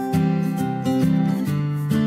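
Background music: strummed acoustic guitar with chords changing every half second or so.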